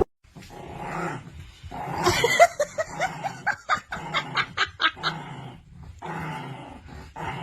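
A dog yipping and barking in a quick run of short calls, about two to three a second, between about two and five seconds in.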